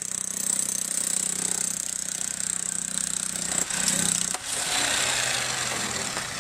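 A handheld power tool runs steadily while the ground is broken up. Around the middle there are a couple of sharp knocks, then scraping as a hand digging tool works through rocky soil.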